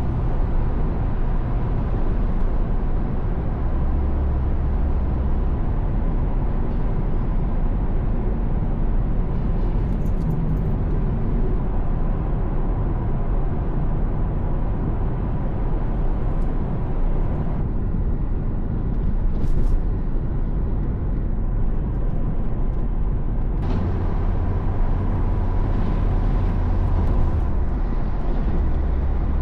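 Steady road noise of a moving car: a deep, continuous rumble with a hiss above it that shifts slightly a couple of times.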